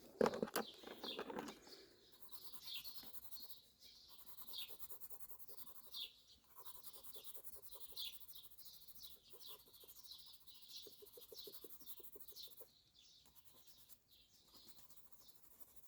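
Songbirds chirping, many short high chirps in irregular succession.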